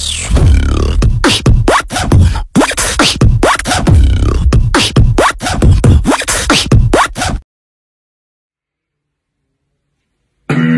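Vocal beatboxing close on a microphone: a fast pattern of sharp kick and snare clicks over deep vocal bass, with rising and falling sung sweeps woven in. It cuts off suddenly about seven seconds in, and after a few seconds of silence a man's voice starts up again just before the end.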